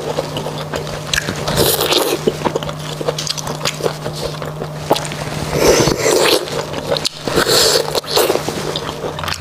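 Close-up wet slurping and sucking of beef bone marrow from a cut bone, with three louder slurps about a second and a half in, near six seconds and near eight seconds, and chewing between them.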